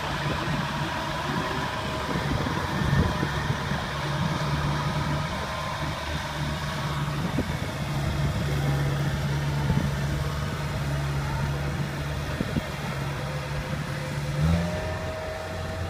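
Diesel engine of a Kubota crawler combine harvester running steadily under load, a constant low hum. About fourteen seconds in its note shifts and a higher whine joins it.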